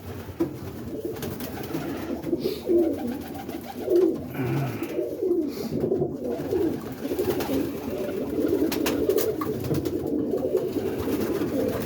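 Several roller pigeons cooing continuously inside the loft, with a few light clicks near the end.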